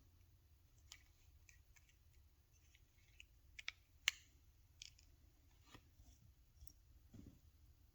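Scattered light clicks and ticks of small plastic and metal parts being handled as a Ram smart key fob is put back together in its replacement shell, the loudest about four seconds in.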